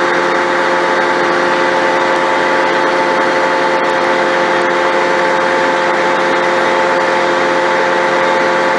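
Engine of the crane lifting the stone cross, running steadily at constant speed, with a steady whine over it.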